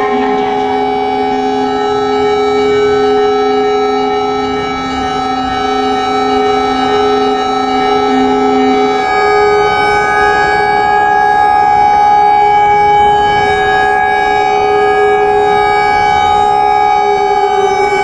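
Civil defense warning siren sounding a steady chord of several tones, as an earthquake warning. About halfway through the lowest tone drops out and higher tones come in, and near the end the pitch starts to fall.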